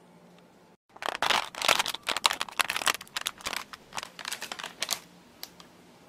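Plastic film wrap being peeled and crinkled off a takeout food tray: a dense run of crackles starting about a second in, thinning to a few clicks after about five seconds.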